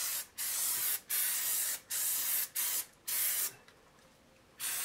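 Aerosol can of Rust-Oleum rubberized spray undercoating being sprayed onto a truck's frame in short hissing bursts, about six in quick succession. A pause of about a second follows, then one more burst near the end.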